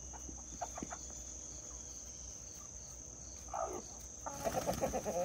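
Crickets chirring steadily in the background, with a brief chicken call about three and a half seconds in and a run of short clucking notes near the end.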